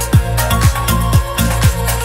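Electronic dance music with a kick drum about twice a second, held bass notes, and hi-hat ticks above.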